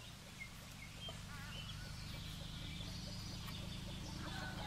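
Faint, scattered bird calls, a few short chirps and one warbling call, over a low steady outdoor rumble.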